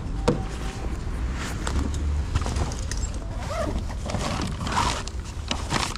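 Handling noise from an insulated food-delivery bag being opened and packed: irregular rustling, clicks and knocks over a low rumble.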